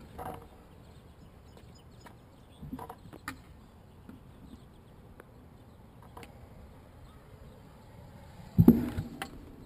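Stunt scooter on skatepark concrete: scattered light clacks and knocks from the wheels and deck, then one loud bang near the end.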